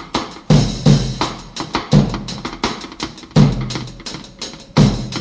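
Backing music with a loud drum-kit beat: heavy kick-drum hits with snare and fast cymbal ticks between them.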